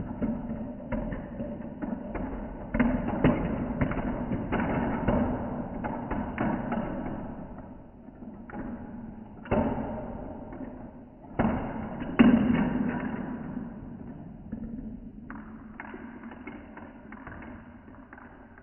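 Marbles rolling through a plastic GraviTrax marble run: a continuous rolling rumble with many clicks and knocks as they hit track pieces, three louder clacks near the middle, fading out toward the end.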